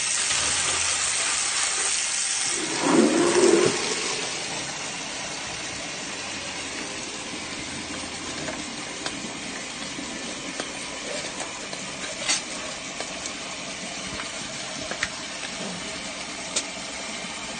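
Water jetting and running through a drain blocked with wet wipes and cooking fat, a steady hiss of spray and flowing water. A louder surge comes about three seconds in, and a couple of sharp knocks come later.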